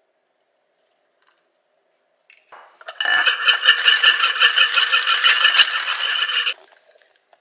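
Ice cubes rattling and clinking in a rapid clatter for about four seconds, starting about two and a half seconds in and cutting off suddenly.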